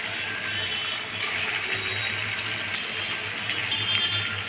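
Batter-coated bajji chillies deep-frying in hot oil: a steady sizzle with a few small crackles and pops.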